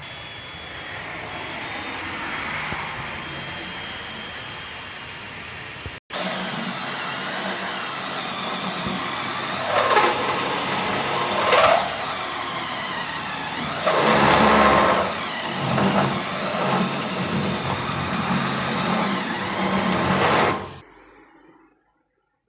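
A motor running, its pitch dipping and rising twice about ten and twelve seconds in; it cuts off suddenly near the end.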